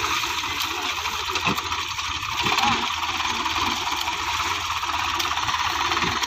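Hindustan HWD50 tractor's diesel engine idling with a steady clatter.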